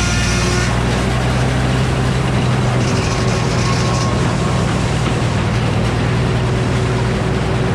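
Old Frick circular sawmill running steadily while sawing a poplar log, its power unit and spinning blade making a loud, even drone with a low hum. The higher hiss drops back under a second in.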